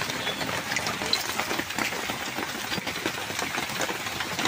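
Hot oil crackling and sizzling in a karai as dough biscuits deep-fry, a steady dense crackle.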